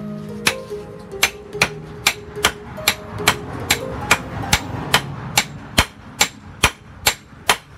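Hand hammer striking a red-hot steel knife blank on a steel post anvil, sharp metallic blows in a steady rhythm of about two and a half a second: hot forging of the blade.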